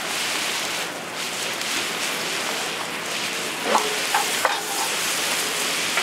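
Spicy chicken stew sizzling and bubbling in a large cast-iron cauldron lid while it is stirred, with a few brief sharper sounds a little past halfway.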